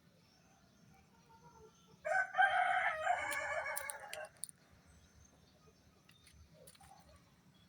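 A rooster crowing once: one call of about two seconds, starting about two seconds in, with a few faint clicks near its end.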